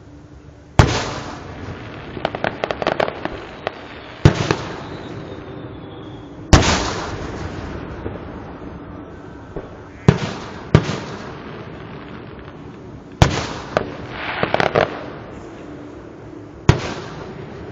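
Aerial fireworks shells bursting: about seven sharp booms, each trailing off in a rumbling echo, with two runs of rapid crackling in between.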